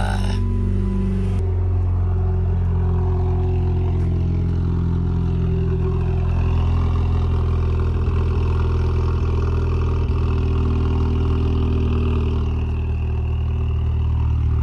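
Dodge Caliber SRT-4's turbocharged 2.4-litre four-cylinder engine idling steadily, starting and running normally with no grinding.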